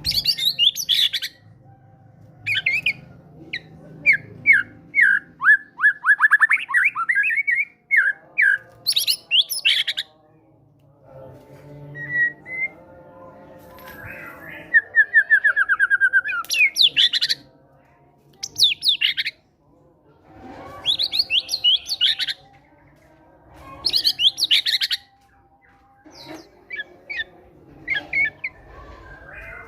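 White-rumped shama (murai batu) singing in loud, separate phrases of sharp chirps, whistled sweeps and fast runs of repeated falling notes, with short pauses between phrases.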